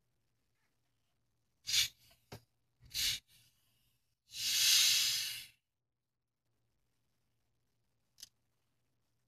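Screw cap of a plastic Sprite bottle being twisted loose: a few short hisses as the seal cracks, then a longer hiss of carbonation gas escaping, just over a second long, and a small click near the end.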